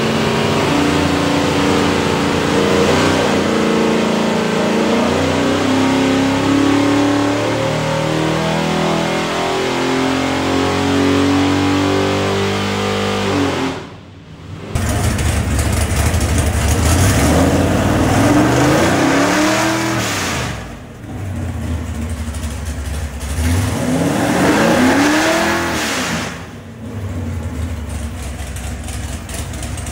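582 cubic-inch big block Chevrolet V8 running on an engine dyno, its pitch stepping between steady engine speeds. After a short break about halfway, an engine is revved up and let back down a few times.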